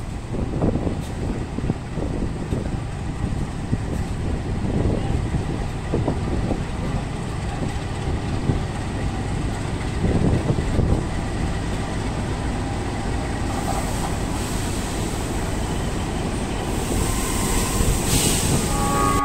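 Passenger train running along the line: a steady low rumble of wheels on rail with irregular knocks, and a hiss that builds near the end.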